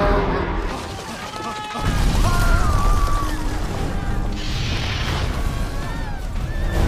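Film soundtrack of a giant sea monster attacking a city: a deep rumble and crashing of collapsing stone, mixed with orchestral music and high gliding cries. The crash is loudest about halfway through.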